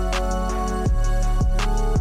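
Background music with a steady beat: a deep drum hit about every half second under held chords and light ticking cymbal strokes.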